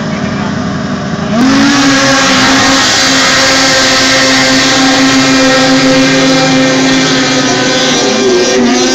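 A pack of racing snowmobiles skimming across open water at full throttle, their engines loud and held at a steady high pitch. The engine noise jumps in suddenly about a second and a half in, and near the end the engine notes waver as the machines move on.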